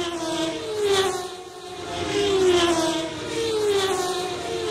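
Racing cars passing one after another, each engine note dropping in pitch as it goes by, several in quick succession.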